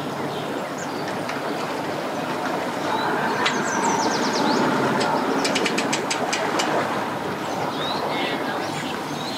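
Yamaha 150 outboard motor running as it backs the boat off its trailer, throttled up from about three seconds in with the propeller churning water, then easing off.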